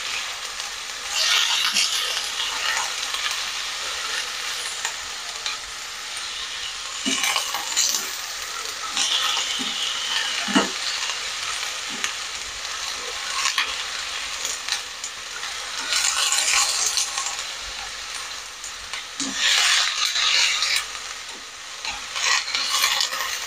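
Chopped cabbage, carrot and spring onion sizzling in hot oil in a non-stick wok while being stirred and tossed with a spatula. A steady sizzle runs under repeated scraping sweeps and a few soft knocks every couple of seconds, as the vegetables are sautéed until they wilt.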